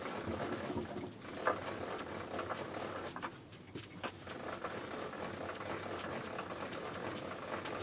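Small milling machine running steadily, with a few light clicks.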